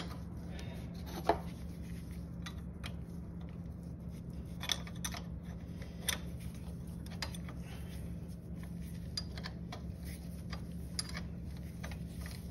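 Hand wrenches clicking and clinking against a nut and bolt as they are worked in opposite directions to break a suspension arm bolt loose: scattered light metallic clicks, the sharpest about a second in, over a steady low hum.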